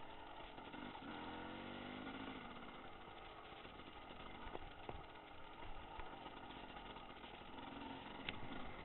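Dirt bike engine running faintly while riding a trail, its pitch rising briefly about a second in, with a few sharp knocks from the ride.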